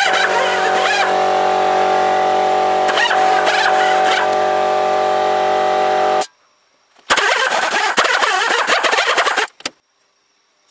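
Die grinder with a small polishing wheel buffing a steel hammer head: a steady whine with hissy grinding noise, cut off abruptly about six seconds in. After a short silence comes a further two and a half seconds of rough, scratchy grinding noise without the whine.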